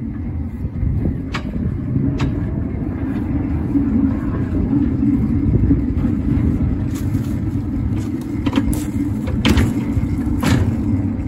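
Small 7¼-inch gauge locomotive's engine running steadily as it drives over the track, with several sharp metallic clanks, most of them in the second half.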